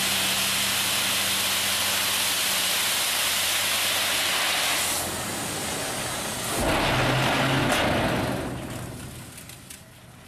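Tipper truck with its body raised, diesel engine running while a load of gravel slides out with a steady hissing rush. About two-thirds of the way in the sound shifts lower and louder, then fades out near the end.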